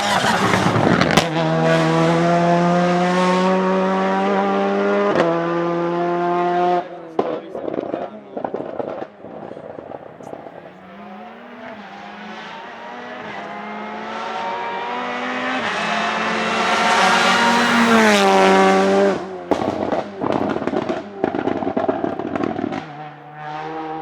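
Peugeot 308 TCR race car's turbocharged four-cylinder engine at full throttle, with a quick upshift about five seconds in. When the driver lifts off, a string of exhaust crackles and bangs follows. The engine builds again to a second loud peak, its pitch falling away as it passes, then crackles and pops once more.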